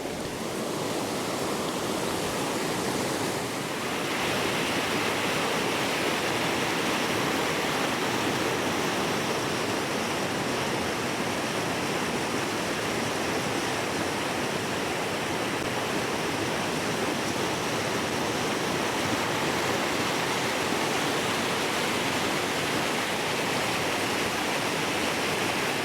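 Steady rush of river water pouring over a waterfall, becoming slightly louder and brighter about four seconds in.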